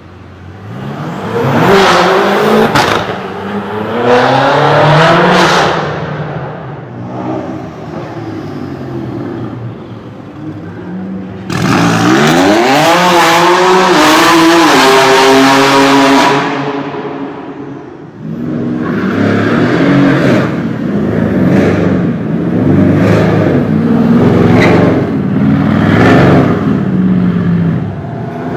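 High-performance car engines revving hard in a road tunnel, the pitch climbing and dropping with each blip, with sharp exhaust pops and crackles. From about 11 s in, a car does a burnout: the engine held at high revs over a loud tyre screech. Late on, another car revs repeatedly with rapid pops.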